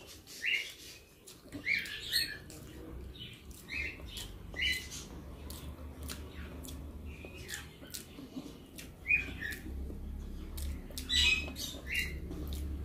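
Close-up wet mouth sounds of eating with the hands: lip smacks and finger-sucking as food is licked off the fingers, about ten short sharp smacks at irregular intervals.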